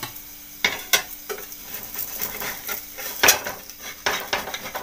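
Flat metal spatula scraping and clinking on an iron tawa as a lentil pancake is loosened from the pan, with metal tongs knocking against the tawa's rim; a light sizzle of oil underneath. A series of sharp clinks, the loudest about three seconds in.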